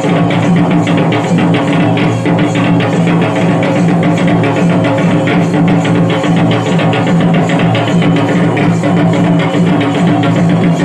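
Loud live folk music accompanying a Paika dance: rapid, dense drumming over a steady held droning tone, going on without a break.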